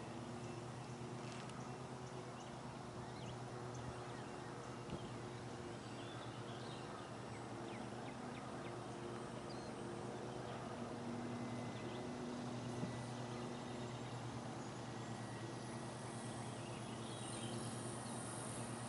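Faint steady drone of a distant radio-control model airplane in flight (a large T-28 warbird model), swelling and fading slightly as it moves, over outdoor background noise with a few faint chirps.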